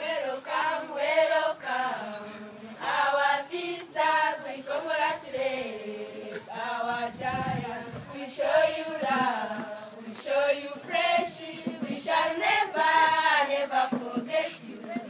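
A group of schoolgirls singing a welcome song together, voices only, in short phrases with brief breaks between them.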